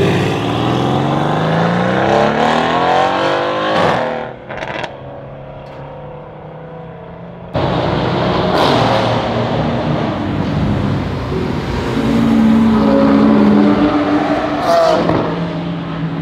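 Mercedes-AMG C63 estate's twin-turbo V8 accelerating hard away, its pitch climbing steeply for about four seconds, then dropping and fading into the distance. After a cut, supercar engines run low and steady at pit-lane speed, with a short rev near the end.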